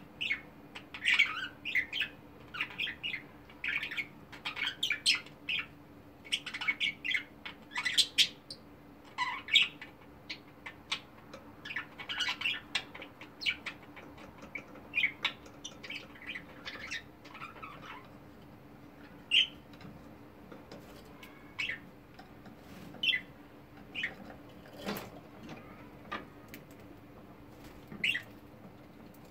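Budgerigars chirping and chattering in quick runs of short calls, thinning out to scattered single chirps after about eighteen seconds. One sharp click near the end.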